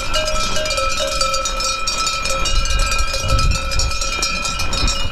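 Many sheep bells clanking and ringing together without pause, as a belled flock of sheep moves close by.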